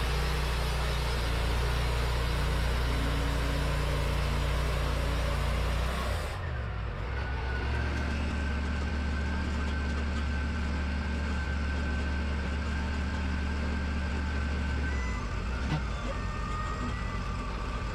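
Wood-Mizer LT40 band sawmill running, its blade sawing through a hemlock log over the engine's steady drone; about six seconds in the hissing cut stops abruptly, and the engine runs on with a thin steady whine.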